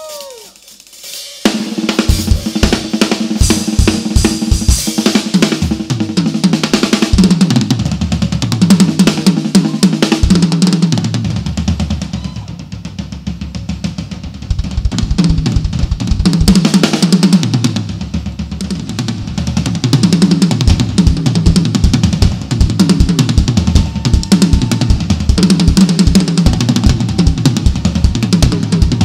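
Acoustic drum kit played fast and busy: bass drum, snare and cymbals in dense strokes, starting about a second and a half in and easing off briefly about halfway through.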